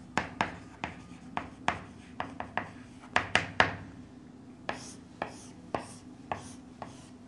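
Chalk on a chalkboard: a quick run of taps and short scratches as letters are written, then a few longer scrapes about halfway through as the sides of a triangle are drawn. A faint steady hum runs underneath.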